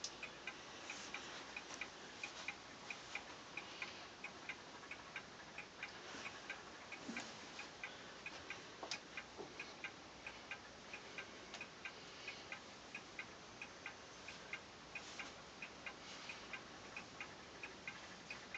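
Wall clock ticking evenly and softly, a few ticks a second, with a few scattered soft knocks.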